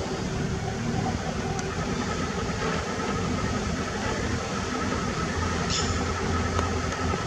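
Steady rumble of a running vehicle engine with a constant low drone, cutting off abruptly at the end; a brief high chirp about two-thirds of the way through.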